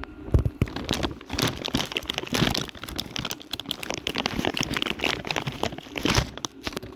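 Plastic or paper packaging crinkling and rustling as it is handled and pulled off a new car door handle, in many irregular crackles.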